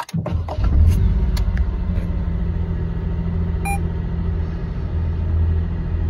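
Honda N-VAN's 660 cc three-cylinder engine starting, catching at once and settling into a steady idle. A single short electronic beep sounds about halfway through.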